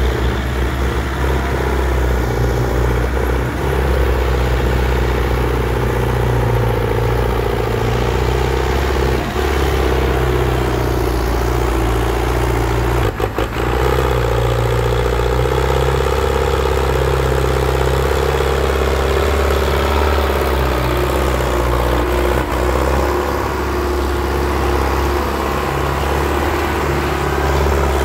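Belarus tractor's diesel engine running steadily and labouring as it pulls a heavily loaded sugarcane trolley, with black smoke from the exhaust showing it is under heavy load. There is a brief break with a few clicks about halfway through.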